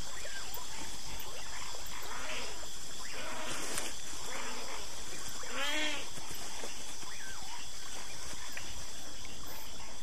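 Steady chorus of insects with a few faint chirps, and one wavering, bleating animal call about six seconds in.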